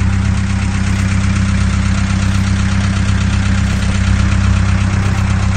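Fishing boat's engine idling steadily, running on a newly fitted battery.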